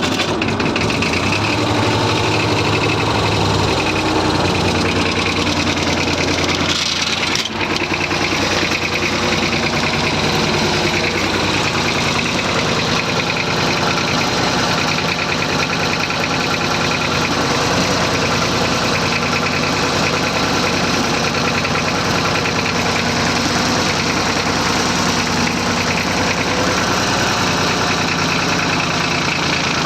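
Massey Ferguson 35 tractor's diesel engine running steadily just after a cold start on its heater plugs, with a brief dip about seven seconds in.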